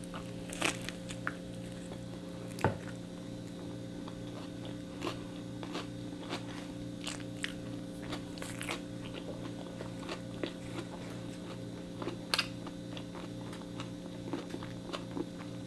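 A person biting into and chewing a toasted bread sandwich with lettuce: soft, irregular crunches and mouth noises, a louder crunch about 2.7 s in and another about 12 s in. A steady low hum runs underneath.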